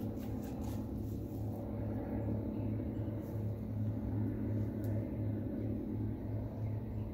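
A steady low engine hum, like a motor running near by, holding one pitch throughout.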